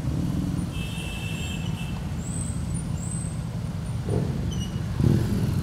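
Engines of a slow-moving group of motorcycles and scooters running together in a steady low rumble, with a brief high squeal about a second in.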